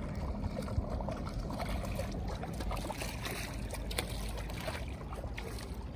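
Kayak paddle strokes in calm water: blades dipping and water trickling and splashing off them, over a low steady rumble.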